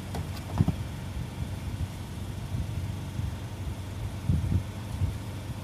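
An engine idling steadily with a low hum, with a few light knocks near the start and about four seconds in.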